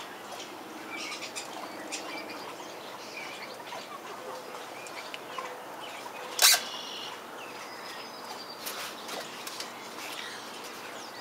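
Backyard chickens and small birds giving faint scattered chirps and calls, with one short, sharp, loud call about six and a half seconds in. No crowing is heard.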